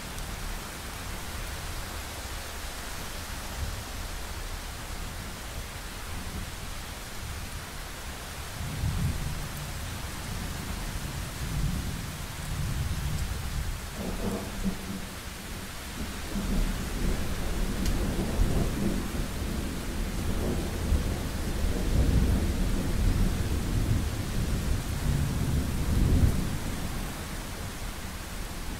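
Thunderstorm: steady rain hiss, with low thunder rumbles starting about a third of the way in and a sharper crack about halfway. Then a long rolling thunder builds, loudest near the end.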